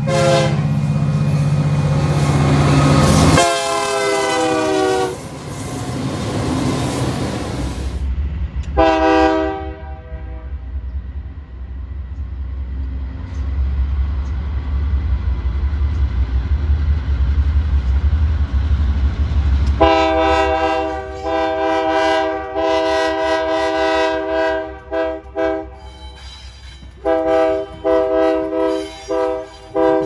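Diesel freight locomotive horns blowing a chord of several notes: long held blasts over the low rumble of the locomotives' diesel engines, then, near the end, a Union Pacific locomotive's horn in a series of short, choppy blasts.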